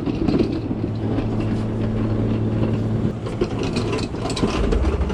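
A motor runs with a steady hum. Scattered clicks and clanks of metal work come over it, and a low rumble comes in near the end.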